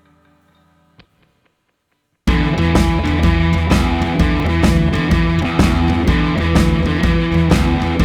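Background music: a faint track fades out, a short click sounds about a second in, and after a brief silence loud rock music with guitar and a steady drum beat starts abruptly.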